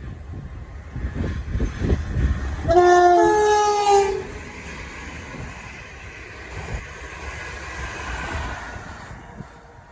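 A passing train sounds its horn about three seconds in: a short note, then a longer note at a different pitch, lasting about a second and a half in all. Low rumble of wheels on the track runs under it and fades away afterwards.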